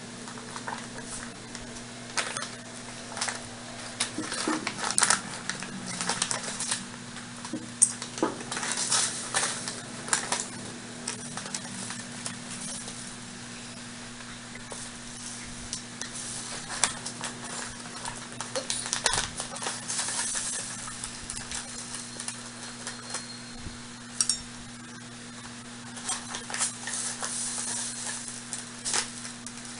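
A metal spoon clicking and scraping against glass, with the crinkle of a plastic pouch of powdered juice mix being opened and spooned from. A steady low hum runs underneath.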